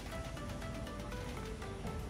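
Background music: a melody of short plucked-sounding notes over a steady beat.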